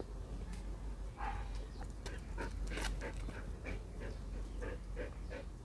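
Bắc Hà dog panting in quick, rhythmic breaths, starting about a second in.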